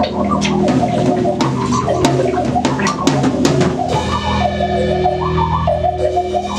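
A rock band jamming with drum kit and guitar, the drums hitting fast and busy. About four seconds in, the drumming thins out and a steady held chord carries on.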